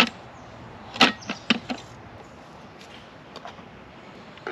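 Sharp clicks and clacks of hard plastic and metal parts as a canister camp stove is put together on a gas canister. There is one sharp click at the start, a quick run of three or four about a second in, and a lighter tick later.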